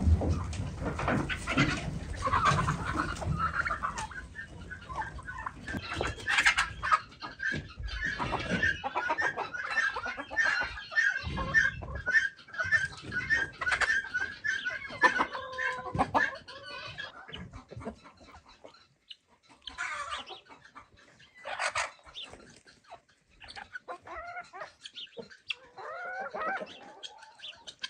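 Chickens clucking, with a long run of quick, evenly spaced clucks through the first half and scattered knocks and clatter throughout.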